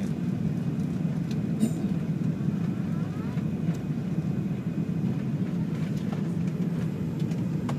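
Airbus A380 cabin noise heard from the upper deck during the climb after takeoff: a steady, low roar from the Rolls-Royce Trent 900 engines and the airflow, with a few faint ticks.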